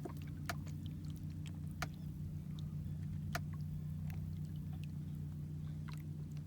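Steady low hum of a small motor on a bass boat, with scattered faint clicks and knocks.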